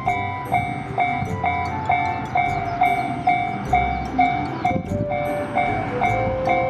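Railway level-crossing warning bell ringing, a sharp, evenly spaced ding about twice a second, over a low rumble. A steady single tone joins it near the end.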